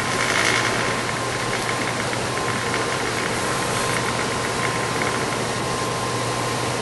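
Hwacheon HL-460 engine lathe running at 395 RPM, its geared headstock turning the spindle and chuck: a steady mechanical hum with a thin, constant whine.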